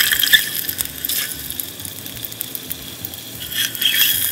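Masala-coated boiled eggs shallow-frying in a little oil in a stainless steel pan: the oil sizzles and crackles, louder at the start and again about four seconds in, with clicks of a metal spoon against the pan as the eggs are turned.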